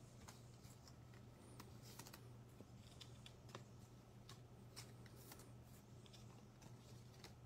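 Faint handling of baseball trading cards: scattered soft clicks and slides as the cards are shuffled and stacked, over a low steady hum.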